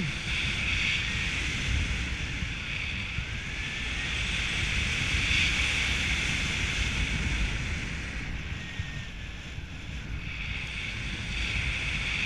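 Wind rushing over a paraglider pilot's camera microphone in flight: a steady rush that eases a little about eight seconds in and picks up again near the end.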